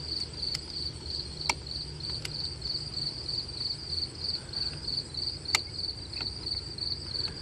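Crickets chirping steadily in quick pulses, with a few sharp clicks now and then, the loudest about five and a half seconds in.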